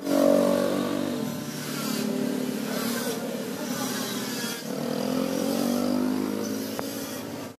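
Motorcycle engine running and being revved. The pitch drops just after the start, holds, then climbs again about five seconds in before easing back.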